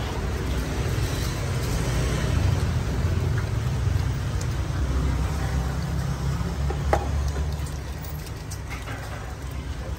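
Low rumble of motor traffic, a vehicle running close by. It swells through the middle and eases near the end, with one sharp click about seven seconds in.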